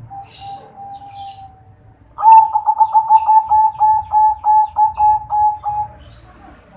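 Perkutut (zebra dove), a local × Bangkok crossbreed with a kresing voice, cooing. A faint drawn-out note is followed about two seconds in by a loud run of about fifteen short notes over nearly four seconds, quick at first and then spacing out. Small birds chirp faintly in the background.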